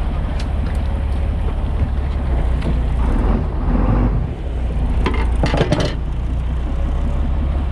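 Fishing boat's engine running steadily under way, with water rushing along the hull and wind. A few sharp knocks and clatters come about five to six seconds in.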